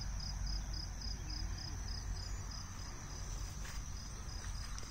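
An insect, cricket-like, chirping in an even high-pitched pulse, about four chirps a second, over a steady high ring.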